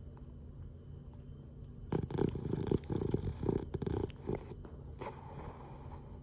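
Sleeping Boston Terrier snoring and blowing bubbles: a rattling, fluttering snore lasting about two seconds, starting about two seconds in, then a softer breath near the end.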